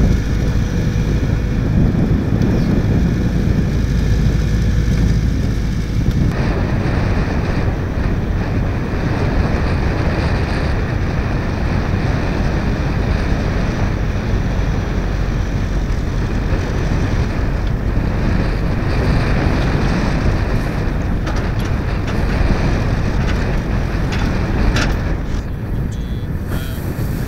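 Diesel engine of a JCB tracked excavator running as it digs sand, under strong wind buffeting the microphone.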